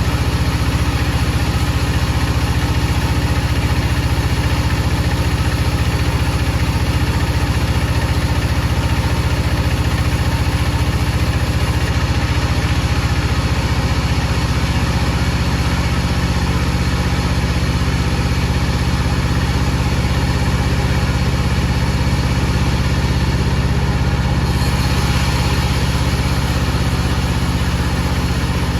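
Power saw machinery running steadily with a deep, constant hum under a dense hiss; the upper hiss shifts slightly about 25 seconds in.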